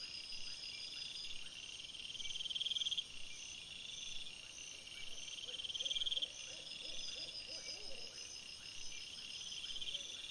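Night chorus of high, rapidly pulsed trilling calls: each trill builds in loudness for about a second and a half, then stops, and comes again every few seconds.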